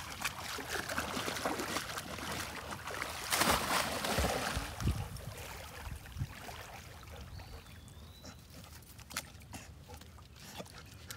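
Newfoundland puppy and Akita wading and paddling in a shallow creek: water splashing and sloshing. It is heaviest in the first few seconds, with one bigger splash about three and a half seconds in, then settles to quieter lapping and small splashes.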